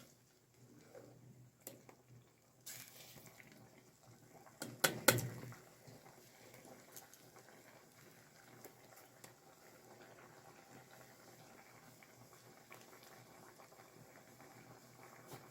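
Pot of sour kimchi and old pumpkin simmering over a campfire, bubbling faintly with scattered small pops and ticks. A couple of sharp knocks come about five seconds in.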